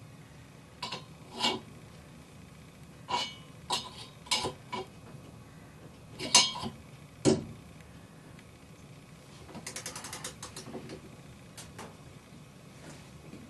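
Ratcheting torque wrench on a long extension working the rotor bolt of an LG washer's direct-drive motor: a series of sharp metal clanks and clicks, then a quick run of ratchet clicks lasting about a second.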